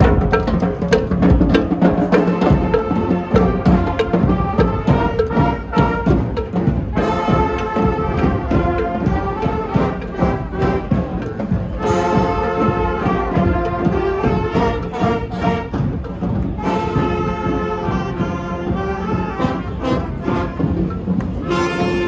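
A street brass band playing: trumpets and trombones carry the tune over snare drums and other percussion. The music jumps abruptly three times, as though cut between takes.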